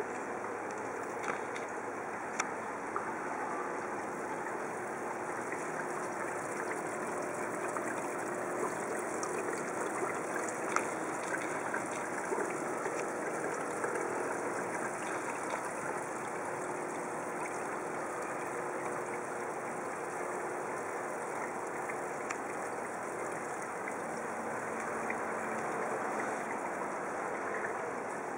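Steady underwater ambient noise, an even hiss with a handful of scattered sharp clicks.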